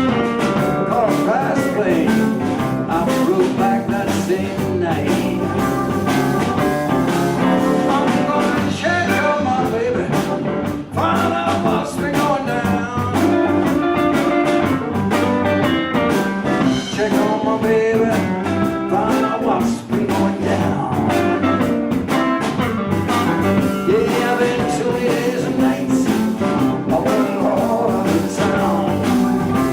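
Live blues band playing an instrumental passage between sung verses, with bending lead lines over a steady bass and beat.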